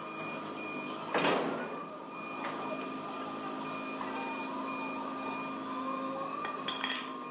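Electronic warning beeper sounding short high beeps at about two a second over a steady machine hum, with a short burst of noise about a second in.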